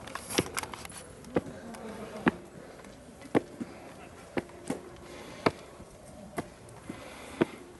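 Footsteps climbing stone stairs: sharp steps at a slow, even pace of about one a second.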